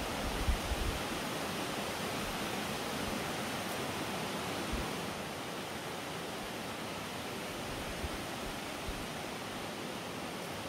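Steady rushing outdoor background noise with no distinct source, and a few short low bumps in the first second.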